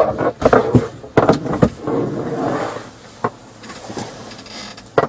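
Handcuffed person shifting and twisting on a patrol car's hard plastic rear seat: a run of sharp knocks and bumps in the first two seconds, a stretch of clothing rustle, then one more knock about three seconds in.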